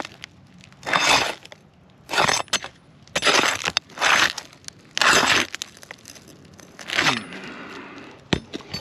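Asphalt roof shingles crackling and tearing as they are pried up and unsealed, in about six separate noisy strokes of half a second or so, with a sharp click near the end. The shingles rip and crack as they come loose rather than lifting cleanly.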